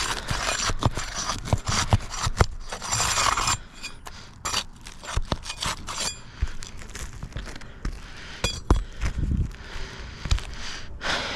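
Brittle roof shingles being handled for nailing: a few seconds of scraping and crackling, then scattered sharp taps and clicks.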